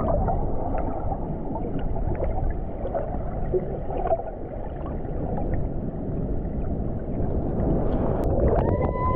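Waterfall water rushing, a loud, dense, muffled roar. Near the end a held, call-like tone comes in over it.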